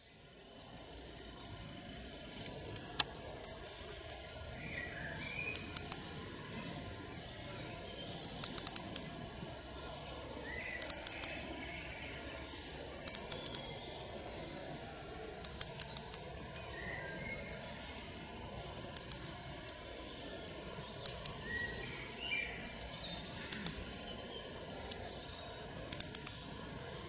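European robin calling: clusters of three to five short, sharp, high notes, repeated about every two to three seconds, with faint chirps from other birds behind.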